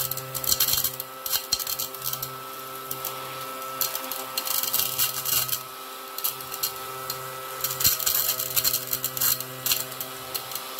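Small battery-powered desktop vacuum cleaner running with a steady, noisy motor hum, broken by bursts of quick clicks and rattles as it sucks up round diamond-painting drills, three times: about a second in, around the middle and near the end.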